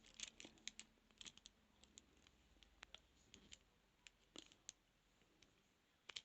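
Lock pick and tension wrench working inside a transparent practice padlock: faint, irregular small metallic clicks and scratches as the pins are worked.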